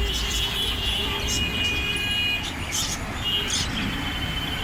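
Small birds chirping in short repeated calls, with some thin held whistled notes, over a steady low rumble of road traffic.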